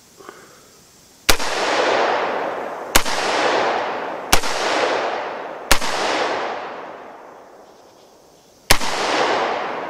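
Five single shots from a short-barrelled AR-15 pistol fired semi-automatically at an uneven pace, four in quick-ish succession and a fifth after a pause of about three seconds. Each sharp crack is followed by a long echo rolling away over a second or two.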